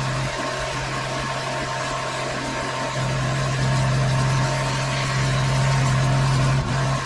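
Engine-driven pressure washer running steadily under the hiss of its spray, the engine note swelling louder for a second or so at a time.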